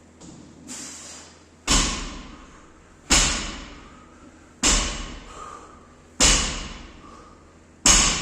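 Five heavy thuds of workout equipment hitting the gym floor, evenly about a second and a half apart, each ringing out briefly.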